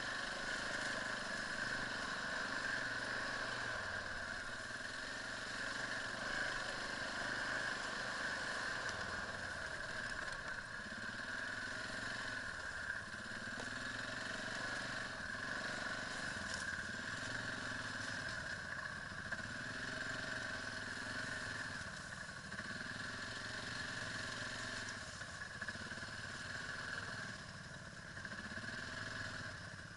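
Quad bike (ATV) engine running while riding over rough ground, its note rising and falling every couple of seconds as the throttle is worked.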